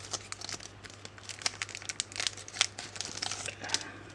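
Thin trading-card pack wrappers being handled and pulled open, crinkling in irregular crackles throughout.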